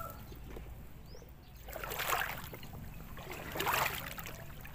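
Water sloshing around legs as someone wades through a flooded field, with two louder swishes about two seconds in and near the end.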